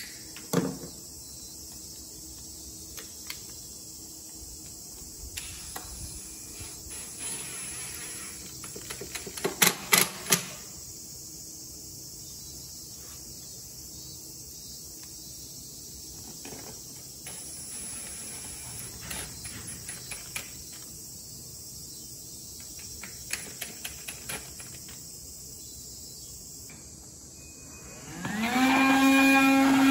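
Scattered light knocks and clicks of hand work on a door frame, with a quick run of sharper knocks about ten seconds in. Near the end an electric power tool's motor spins up, rising in pitch, and runs steadily.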